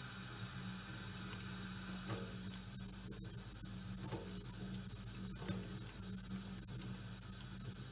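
Thin stream of tap water running steadily into a plastic measuring jug in a stainless-steel sink, over a steady low hum, with a few faint clicks about once a second.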